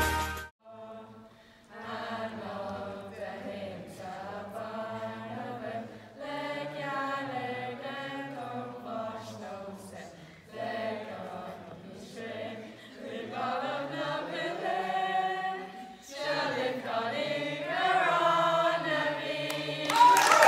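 A group of girls' voices singing together, the basketball team lined up on court. They sing in phrases a few seconds long, with short breaks between them.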